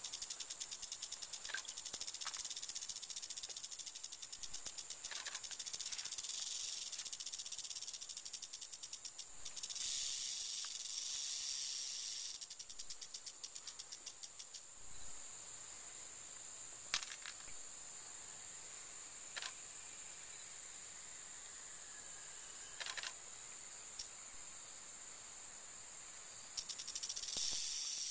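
Western diamondback rattlesnake buzzing its rattle: a high, fast, hissing buzz. The buzz eases about halfway through, then swells again near the end as a person comes close. A few sharp clicks sound in the quieter middle stretch.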